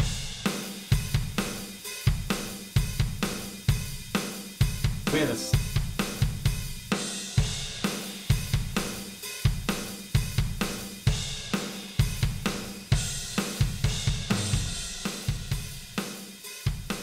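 Background music: a steady drum-kit beat with bass drum, snare, hi-hat and cymbals.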